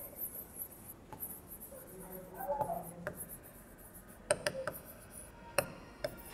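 Writing by hand: soft strokes with a few short, sharp taps, several close together a little past the middle.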